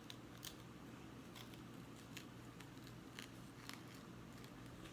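Near silence broken by a few faint, scattered clicks of a knife cutting into jalapeño peppers to seed them.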